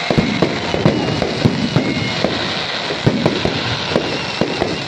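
Fireworks going off: a rapid, irregular string of bangs and crackles.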